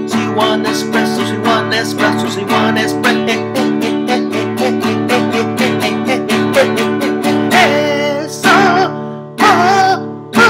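Acoustic guitar strummed fast and steadily, about four strokes a second. From about three-quarters of the way through, a man's voice comes in over it with short, loud sung phrases.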